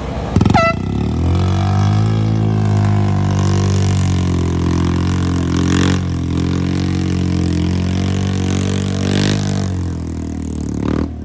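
ATV engine held at high, fairly steady revs under load, with a sharp burst of sound just as it starts.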